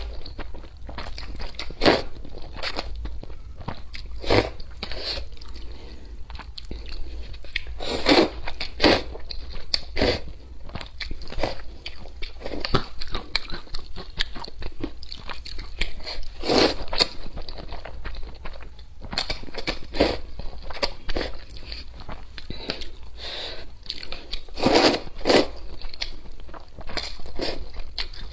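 Close-up mouth sounds of eating cup glass noodles in hot and sour broth: repeated wet slurps of the sweet potato noodles and chewing. The loudest slurps come at about 8, 9, 16 and 25 seconds in.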